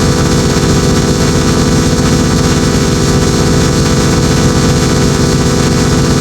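Loud, harsh, heavily distorted layered audio effect: a dense, unchanging drone of many stacked tones over noise, with a fast flutter in the low end.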